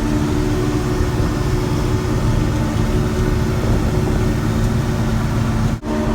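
Vehicle engine running steadily: a low rumble with a steady hum, breaking off for an instant near the end.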